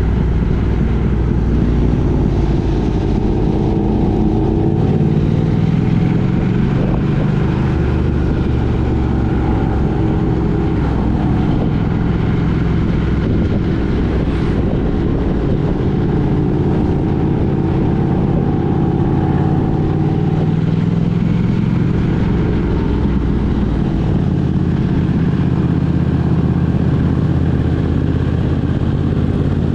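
A road vehicle's engine and road noise on the move, a steady drone whose engine pitch slowly rises and falls with changes in speed.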